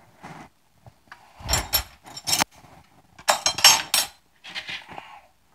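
Cutlery and dishes clinking and clattering off to the side, in several short bursts, the loudest a little past the middle.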